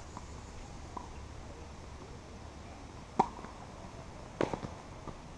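Tennis rally on a hard court: a sharp pock of a racket striking the ball about three seconds in, then a quick cluster of knocks a little over a second later as the ball bounces and is struck again.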